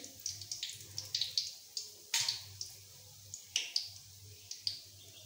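Hot oil crackling and spitting in a wok as fried potato-semolina patties drain over it on a slotted spoon, with irregular sharp pops, the loudest about two seconds in, over a faint low hum.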